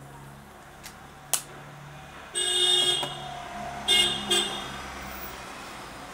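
A vehicle horn honking from outside. There is one blast of under a second, then two short toots about a second later, over a steady low hum. Two sharp clicks come earlier.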